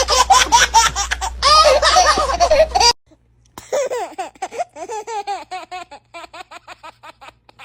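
A baby laughing hard. After a sudden cut about three seconds in, a second bout of laughter breaks into a run of short giggles that grow fainter toward the end.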